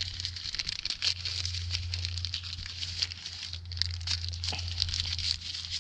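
Clear plastic packaging crinkling and crackling as it is handled and torn open, a dense run of small irregular crackles over a steady low hum.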